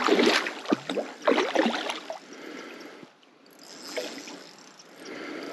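A large hooked trout splashing and thrashing at the water's surface during the fight. The splashes come in a quick run during the first two seconds, then fade to quieter water sounds.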